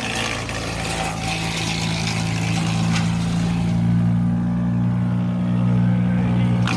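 An engine running steadily, with a low hum that grows stronger about four seconds in.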